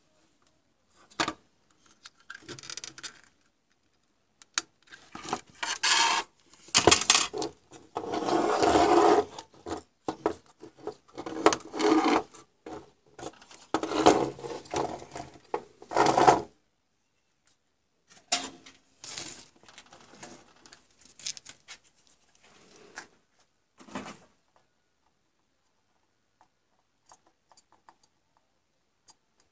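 Handling noise of a circuit board being picked up, moved and turned over on a wooden workbench: irregular rubbing, scraping and knocks, busiest through the middle and thinning to a few faint taps near the end.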